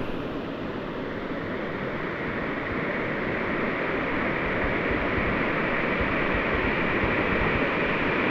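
Mountain stream water rushing over rocks, a steady hiss that grows slightly louder over the few seconds.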